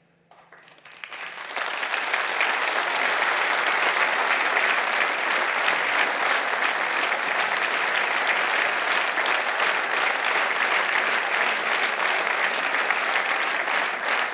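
Large audience applauding: a moment of silence, then scattered claps swell within about a second and a half into steady, full applause.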